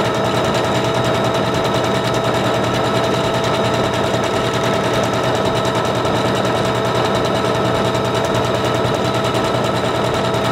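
Singer Confidence 7640 electronic sewing machine sewing steadily at speed: a fast, even ticking of the needle stroke over a steady motor whine.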